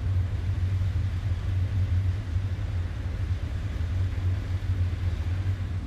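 Combine harvester running steadily while harvesting corn, a constant low engine rumble.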